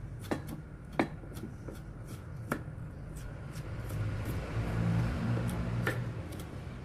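Kitchen knife slicing a carrot into matchsticks on a wooden cutting board, the blade tapping the board in irregular knocks. A low hum swells in the background about midway.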